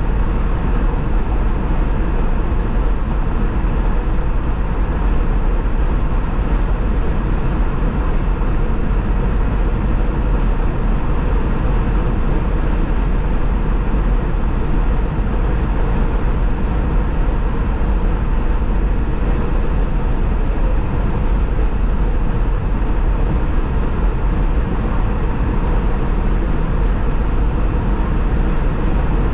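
Car driving at freeway speed: steady tyre and road noise with a heavy low rumble.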